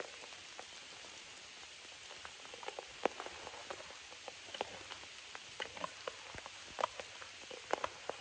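Steady rain falling, with irregular sharp ticks and clicks scattered through it.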